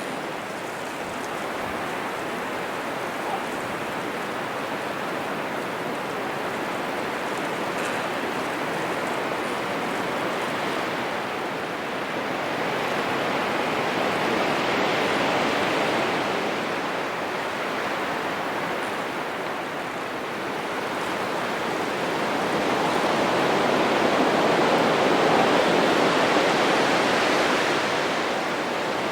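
Heavy wind gusting through forest trees: a continuous rushing noise that swells into stronger gusts around the middle and again near the end.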